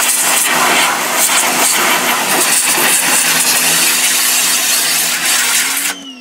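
Harbor Freight Portland 1750 PSI electric pressure washer firing its pencil-beam jet against a plastic propane tank cover: a loud hiss of spray over the steady hum of the electric pump motor. Near the end the spray cuts off and the motor winds down with a falling whine, as the machine stops when the trigger is let go.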